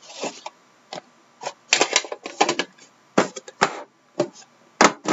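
Hands opening a trading-card hobby box: an irregular string of sharp clicks, taps and short scraping rustles as the lid comes off and the inner box is lifted out. The sharpest click comes near the end.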